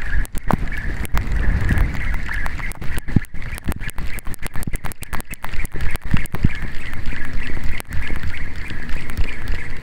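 Mavllos Greek 1000 spinning reel being cranked to retrieve a lure: a steady, wavering gear whirr that runs on without a break, with wind buffeting the microphone and scattered clicks of rod handling.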